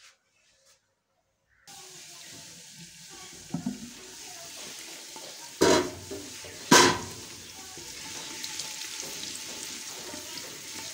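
Chopped onion, ginger and garlic sizzling in hot oil in a clay pot, being fried to light brown while stirred with a wooden spatula. The sizzle starts suddenly after a short silence, and the spatula knocks sharply against the clay pot a few times midway, twice loudly.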